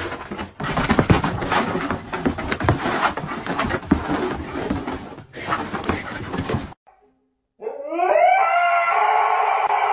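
A dog dashing about a room, a dense run of thumps and scuffles, which cuts off about two-thirds of the way in. After a moment of silence a Siberian husky howls: one long call that rises at first and then holds steady.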